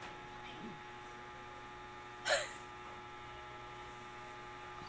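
Steady electrical hum with many overtones, and one brief, sharp vocal sound from a person a little over two seconds in.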